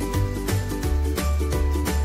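Upbeat background music with a steady beat of about four strokes a second over a bass line that moves to a lower note about a second in.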